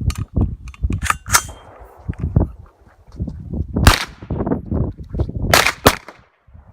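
9mm AR-pattern carbine (PSA AR-9) firing: light metallic clicks and clangs, then two sharp gunshots about a second and a half apart.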